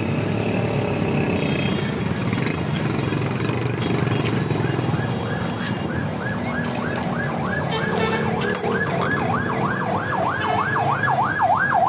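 Emergency vehicle siren in a rapid yelp, its pitch sweeping up and down about three times a second. It comes in faintly about five seconds in and grows louder over steady road traffic noise.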